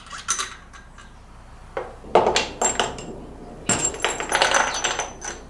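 Steel engine case bolts clinking and clattering against each other and the metal workbench as they are handled and set down, with a louder clank about two seconds in and a burst of rattling, ringing clinks near four seconds.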